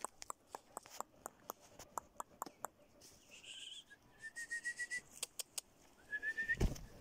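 Quick, regular footsteps on a dry dirt path, about four a second, stopping after nearly three seconds. Then a high trilled whistle, rising slightly, twice, and a thump near the end.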